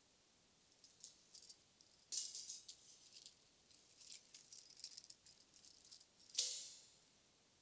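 Small tambourine-style metal jingles on Big Fat Snare Drum cymbal accessories (the Bling Ring and the Big Fat Necktie) rattling and clinking as they are handled and moved between cymbals. The jingling comes in irregular bunches, with a louder clink just after six seconds that rings out briefly.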